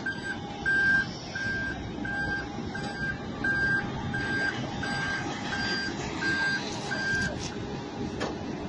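Vehicle reversing alarm beeping steadily, about one and a half beeps a second, over a continuous low rumble; the beeping stops about seven seconds in.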